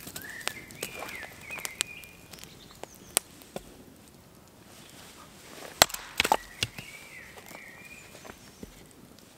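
Wood being split on a stump chopping block: a few light wooden clicks early on, then a cluster of sharp axe-on-wood knocks about six seconds in, the loudest sounds. A bird chirps twice in the background.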